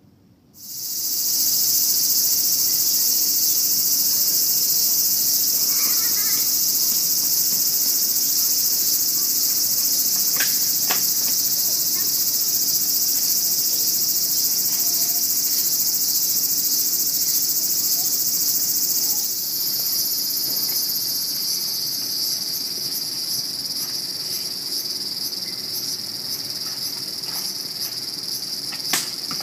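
A loud, steady, high-pitched insect chorus that starts suddenly at the very beginning and shifts a little in pitch about two-thirds of the way through, with a few faint knocks near the middle and one near the end.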